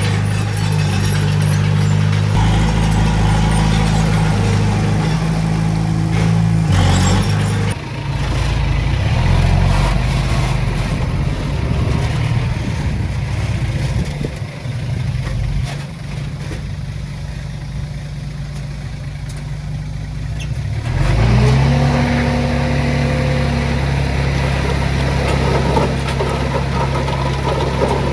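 Heavy-equipment diesel engine working under load, its pitch dropping about eight seconds in, running lower for a while, then revving back up about 21 seconds in.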